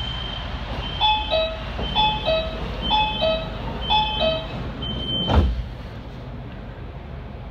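Door-closing warning on a CRRC Zhuzhou metro train: high beeping with a descending two-note chime repeated four times, about once a second. About five seconds in the doors shut with a loud thud and the cabin goes quieter.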